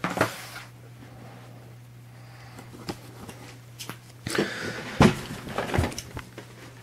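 Handling noises: rustling and knocking as cardboard boxes and packaging are moved, busier in the second half with two sharp knocks, over a steady low hum.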